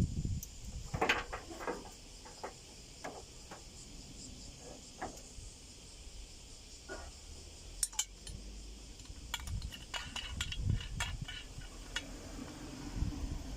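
Scattered light clinks, taps and knocks of small hard objects being handled, over a steady high insect chirring.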